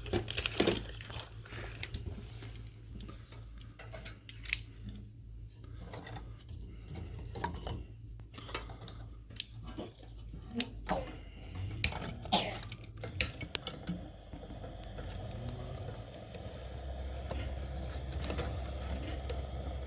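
Irregular clinks, knocks and rustles of hard objects being handled and set down. From about two-thirds of the way in, these give way to a steady rushing noise with a low hum.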